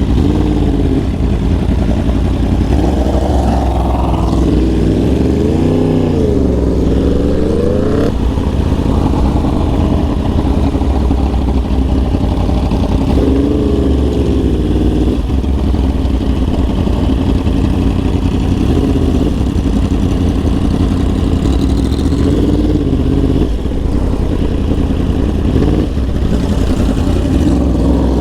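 Yamaha R1 sportbike engine running under way. Its exhaust note rises and falls with the throttle several times over a steady low rumble.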